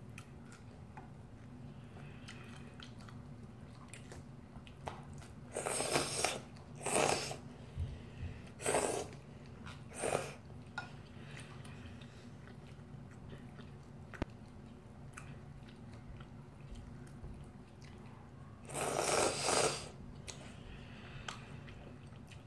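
Slurping instant ramen noodles in shrimp soup, with a few short slurps between about six and ten seconds in and a longer slurp near nineteen seconds, and quiet chewing in between.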